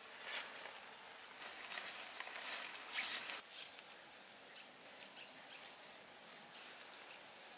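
A few brief rustles of tent fabric and steps on grass, the loudest about three seconds in, over a faint steady high insect tone.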